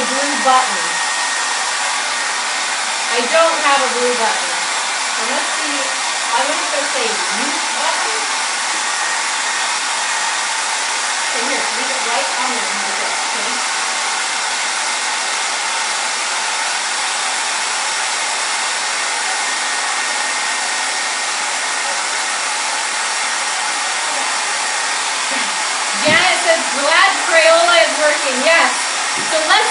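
Handheld hair dryer running steadily, blowing hot air onto crayons glued along the edge of a canvas to melt the wax. Voices talk faintly over it now and then, and more near the end.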